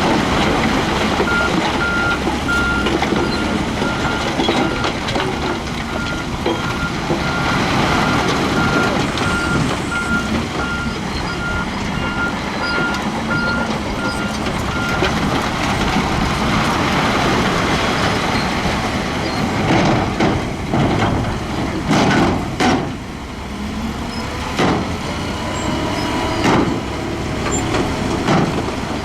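Heavy earthmoving machinery running under load, with a reversing alarm beeping steadily for about the first half. Near the end come several loud knocks and clanks of metal and rock.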